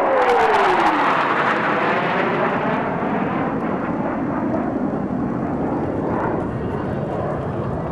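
Three F-15J Eagle fighter jets flying over in formation. A whine in their jet noise drops in pitch in the first second as they pass. Then the broad jet noise slowly fades as they fly away.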